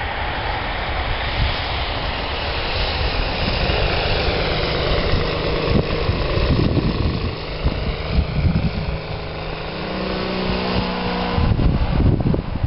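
Radio-controlled model airplane's engine and propeller running as it flies over, its pitch shifting as it passes, with a gusty wind rumble on the microphone.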